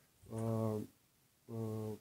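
A man's voice making two drawn-out, level hesitation sounds ("ăăă") without words, each about half a second long, the second near the end.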